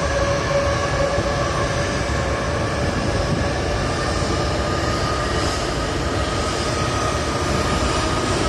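Airbus A380's four Rolls-Royce Trent 900 turbofans running at takeoff thrust: a steady, loud rush with whining tones that climb slowly in pitch as the aircraft begins its takeoff roll.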